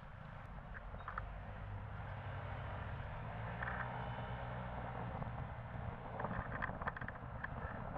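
Street traffic noise: a motor vehicle's engine running by with a low rumble, strongest about halfway through, with a few light ticks and knocks near the end.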